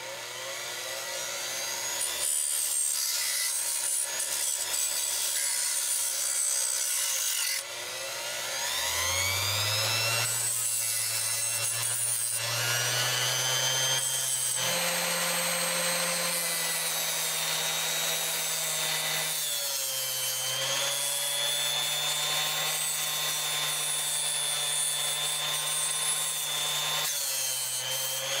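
Small 3-inch bench grinder running with a steady whine, over a rasping rub as screws held in locking pliers are ground clean against its spinning wheel. The motor dips briefly about eight seconds in, then winds back up, and its pitch steps up and down a few times after that.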